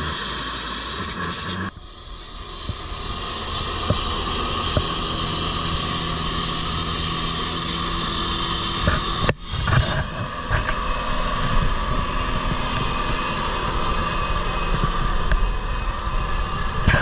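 Walk-behind diamond-blade saw running steadily while wet-cutting asphalt: a steady engine drone under the rushing noise of the blade in the cut. The sound changes abruptly twice, about two seconds in and about nine seconds in.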